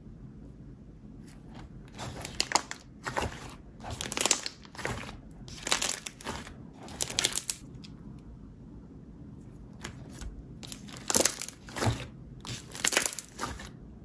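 Soft purple slime being stretched and squeezed by hand, making a string of short squishes in two bouts: one from about two seconds in, and another after a pause around eight to ten seconds.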